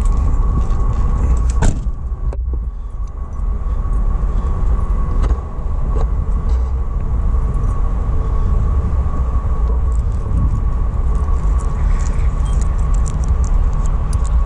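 The GMC Savana 3500 van's engine idling, a steady low rumble with a thin steady whine over it, with keys jangling and a single knock about two seconds in.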